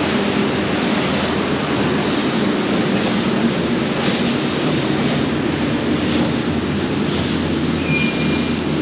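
Steady industrial noise of a flatbed laser cutting machine at work on steel plate, a constant hum with a wash of hiss over it, in a loud fabrication shop.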